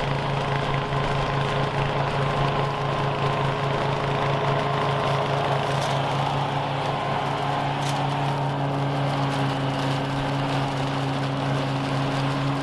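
Toro TimeMaster 30-inch walk-behind lawn mower's engine running steadily with an even hum while it mows and bags dry leaves.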